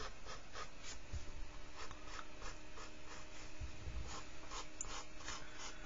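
Pencil drawing a light curve on drawing paper: short soft scratching strokes, about two or three a second, as it joins plotted points into an ellipse. A faint steady hum lies underneath.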